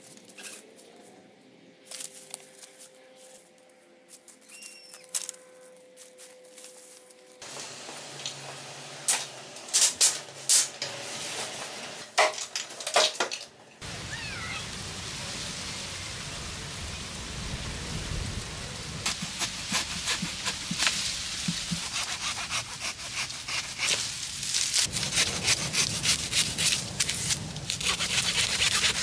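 Dry reed stalks and brush being pulled, broken and cut by hand: rustling with a string of sharp cracks and snaps, loudest about ten seconds in and again near the end, over a steady hiss from about halfway.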